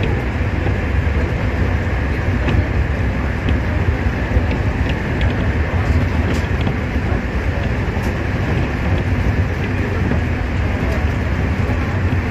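Nankai 2000 series electric train running along the line, heard from inside its front cab: a steady rumble of wheels on rail and running gear, with a few faint clicks.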